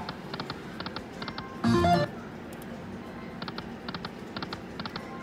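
Lightning Cash video slot machine sounds during play: a run of short electronic ticks as the reels spin and stop, then a loud, brief pitched jingle about two seconds in. The cycle repeats about every four seconds, one spin after another.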